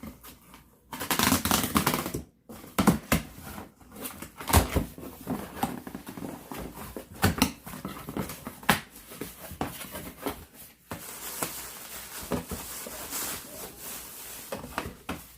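Cardboard boxes being handled and moved about: rustling and scraping, with many scattered knocks and taps.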